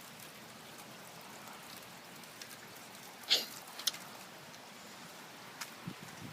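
Steady rain falling, with scattered drops tapping close by and two louder sharp taps a little past three seconds in.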